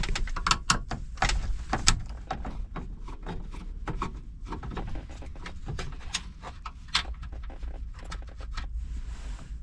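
Irregular clicks, taps and small rattles of a hand tool working on the mounting bolts of a car's factory radio.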